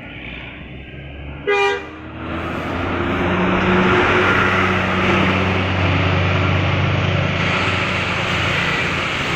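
A single short horn toot about a second and a half in, then a large bus's engine grows loud and runs steadily as it passes close by.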